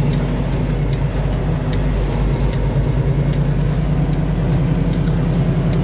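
Semi truck's diesel engine running steadily at low speed while manoeuvring, heard from inside the cab as a low drone. A light ticking repeats about two or three times a second throughout.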